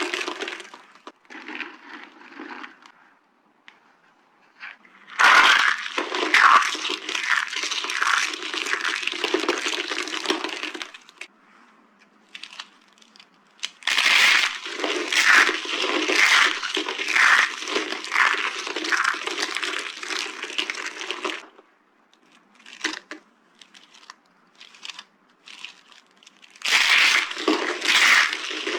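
Dry green soap being crushed, crunching and cracking in long stretches of dense crackles, with quieter pauses between them holding only a few scattered cracks.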